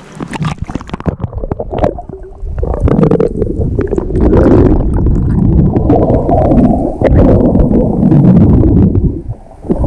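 Sea water slapping and splashing around an action camera at the surface, then, from about three seconds in, the muffled rumble and gurgling of the camera underwater as a swimmer blows out bubbles. The underwater rumble drops away briefly near the end.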